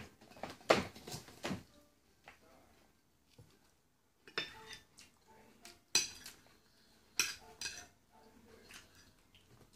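Scattered sharp clinks and knocks of tableware being handled, a few at a time with quiet gaps between them; the loudest come near the start and about two-thirds of the way through.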